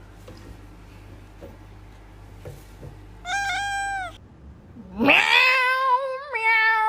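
A cat meowing: one short meow about three seconds in that falls in pitch at its end, then a loud, long drawn-out yowl from about five seconds in that rises and then holds.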